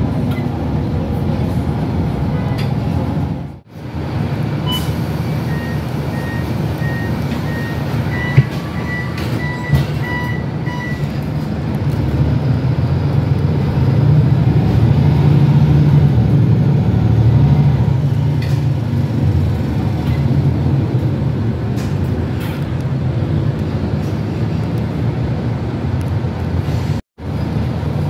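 Cabin sound of a MAN NL323F (A22) city bus under way: its six-cylinder diesel and drivetrain drone steadily with road noise, growing louder for several seconds about halfway through as the bus pulls harder. From about five seconds in, a run of short high electronic beeps sounds for several seconds. The sound drops out briefly twice.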